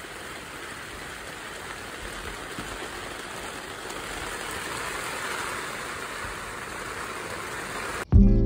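Heavy rain in a strong wind during a typhoon-signal storm at night: a steady, even rush of rain with a low rumble, swelling slightly midway. Music cuts in abruptly near the end.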